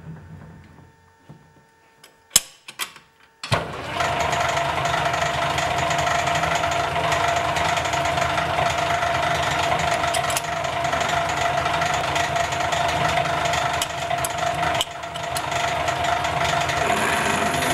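A few sharp clicks, then a metal lathe starting suddenly about three and a half seconds in. Its motor and gears run steadily with a constant hum while a drill bores into an acrylic bar held in the three-jaw chuck.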